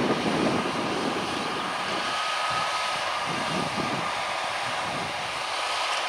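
Steady engine drone of John Deere 6215R tractors at field work, the nearer one driving a power harrow drill through ploughed soil, with a faint high steady whine over it.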